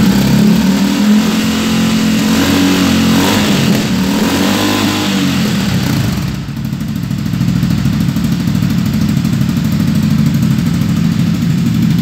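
Motorcycle engine running at high revs through a Disarsz aftermarket exhaust, its pitch wavering up and down a few seconds in and then held steady.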